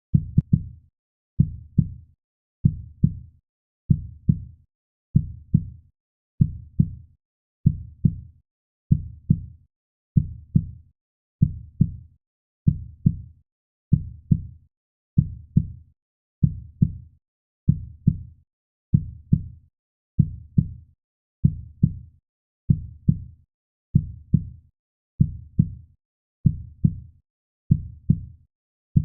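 Heartbeat sound: steady low double thumps (lub-dub), about one pair every 1.2 seconds, repeating evenly.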